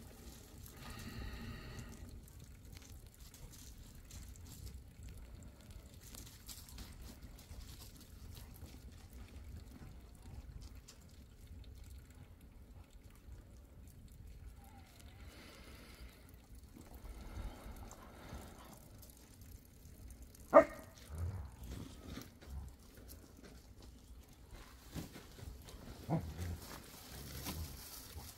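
Fire in a metal burn barrel crackling quietly, with a dog whimpering briefly about a second in and again around the middle. About two-thirds through comes one sharp pop, the loudest sound, followed by a few soft thumps.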